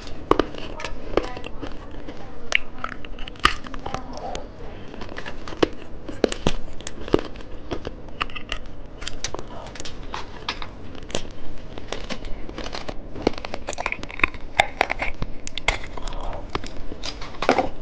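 Close-miked candy being unwrapped and eaten: plastic packaging crinkling and tearing, with many sharp irregular clicks and crunches.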